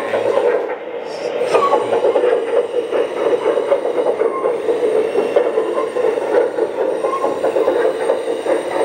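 Kabolite K970-200 1/14-scale RC hydraulic excavator running and travelling on its metal crawler tracks: a steady mechanical hum under a rapid, continuous clatter of track links.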